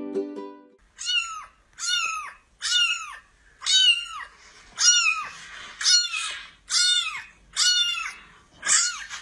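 Young kitten meowing over and over, about nine high-pitched meows roughly one a second, each rising then falling in pitch. Ukulele music cuts off just before the first meow.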